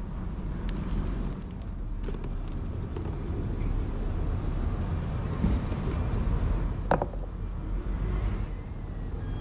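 Steady low rumble of road traffic, with a single sharp click about seven seconds in.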